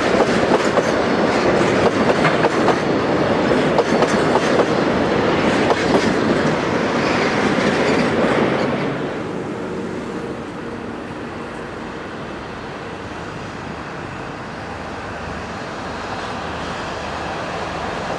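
Freight train tank wagons rolling past close by, their wheels clicking over the rail joints. About nine seconds in, this gives way to the quieter, steady running sound of a KD55 diesel locomotive approaching with its tank-car train, slowly growing louder.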